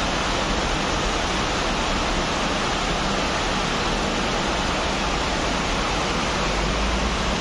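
Steady, even rushing noise with no pauses or changes.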